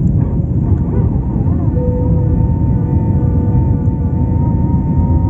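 Airbus A320 cabin noise in flight: the steady low rumble of the jet engines and airflow. A high tone wavers about a second in, then holds steady until near the end.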